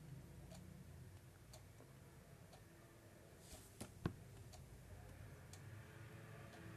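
Faint, even ticking, about one tick a second, over a low hum, with one sharper click about four seconds in.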